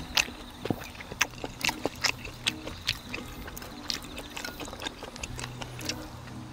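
Eating beef seaweed soup: irregular clicks and taps of a spoon and chopsticks against the bowl, mixed with slurping and mouth sounds of eating.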